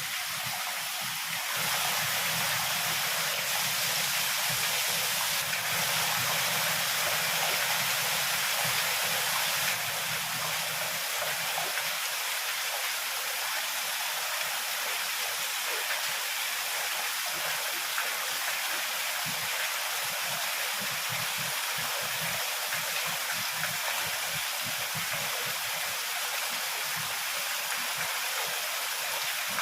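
Heavy rain falling in a steady downpour, a little louder for the first several seconds.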